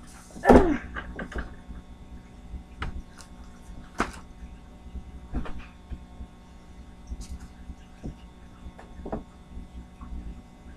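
Steady low electrical hum, with scattered knocks, clicks and rustles of someone moving about close to the microphone, and one short, louder sound that falls in pitch about half a second in.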